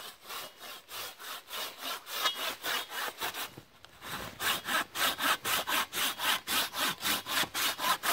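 Hand saw cutting through three branches held together at once, in rhythmic back-and-forth strokes. The strokes pause briefly about three seconds in, then resume louder and steady at about four a second.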